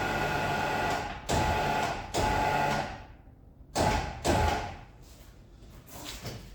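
A small electric motor runs steadily, stops about a second in, then is run in four short bursts of under a second each.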